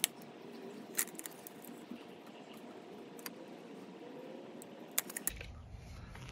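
Quiet handling sounds of a tape measure and pencil: a few sharp, light clicks and ticks while a pine board is measured and marked, over a faint steady background.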